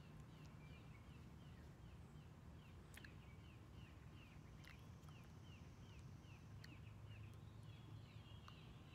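Near silence, with faint high chirps repeating about three times a second over a low steady hum.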